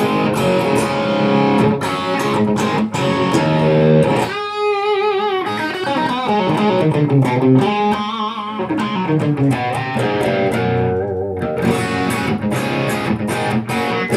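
Electric guitar played through an Idea Sound Product RAT-style distortion pedal, with its added mid-gain control in use. The distorted notes ring on, with wide vibrato bends about four seconds in and again around eight seconds.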